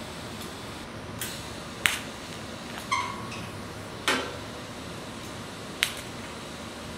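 Five sharp metallic clicks and taps over a steady hiss during TIG tack-welding of a sheet-metal hood. One click about three seconds in rings briefly like a ping.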